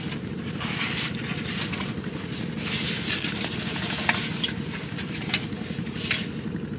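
Water sloshing and splashing as a wet mesh hand net is shaken out and emptied into a metal pot in shallow water, with a few short light knocks, over a steady low hum.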